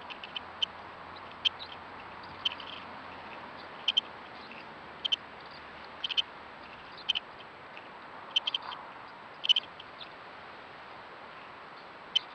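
Short, high-pitched squeaks coming from a badger sett, single or in quick pairs and clusters, irregularly about once a second, over a steady hiss. The recordist has not heard such sounds before and suspects they may be yet-to-emerge badger cubs calling underground.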